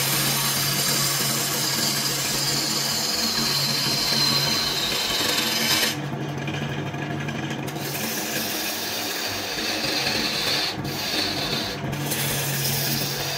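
A BURT wood lathe running under a low hum while a hand-held flat tool is pressed against the spinning wooden vase blank, a steady rough scraping hiss as it cuts. The scraping stops for a second or two about six seconds in, then resumes.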